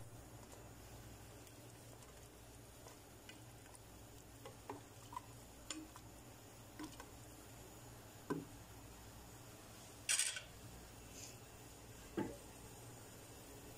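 Wooden spoon stirring a stew in an aluminium pressure cooker: soft scattered knocks of the spoon against the pot, with a sharper scrape about ten seconds in, over a low steady hum.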